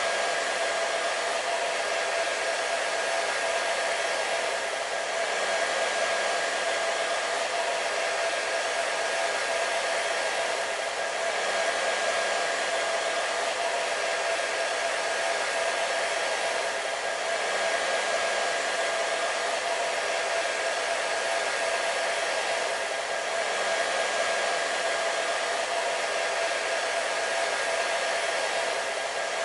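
Electric hair dryer running steadily: an even rushing hiss of air with a steady motor whine in it.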